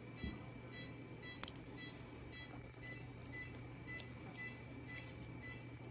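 Faint short electronic beeps repeating about twice a second, over a low steady hum.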